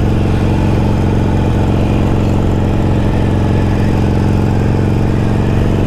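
Harley-Davidson Iron 1200's air-cooled V-twin engine running steadily at a constant cruising speed, heard from the rider's seat.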